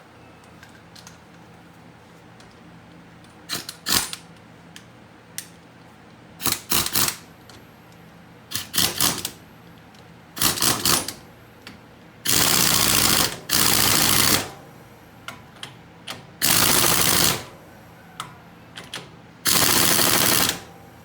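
Impact wrench with a 30 mm impact socket hammering a castle nut tight: a few short bursts, then four longer bursts of one to two seconds each in the second half.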